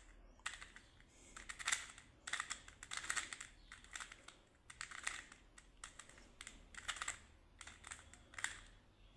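Rubik's cube layers being turned by hand: short clusters of plastic clicks and clatter, one burst of turns after another, as a corner commutator is worked through to finish the last corners.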